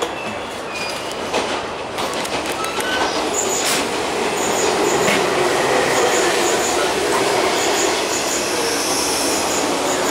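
JR 485-series electric train arriving at a station platform, its running noise growing louder as the cars roll past. Sharp clicks sound in the first couple of seconds as it crosses the points and rail joints.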